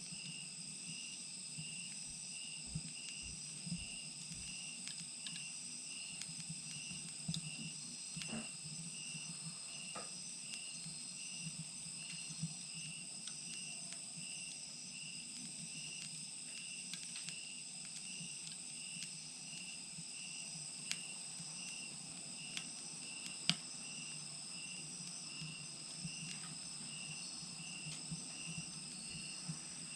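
Wood fire burning in a Mexican chimenea, crackling with scattered pops; the loudest pop comes about two-thirds of the way through. Insects chirp steadily over it in an even pulse a little more than once a second.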